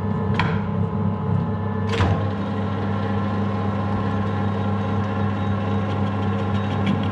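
Metal lathe running, its motor and gears giving a steady hum as the chuck spins. A sharp click sounds about two seconds in.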